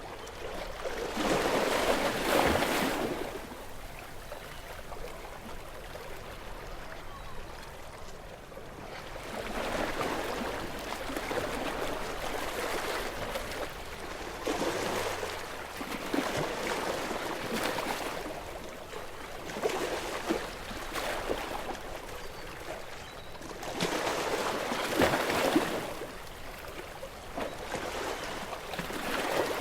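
Gentle sea waves washing up on a beach and drawing back, in a slow run of swells. The biggest wash comes about two seconds in, smaller ones follow through the middle, and another strong one comes near the end.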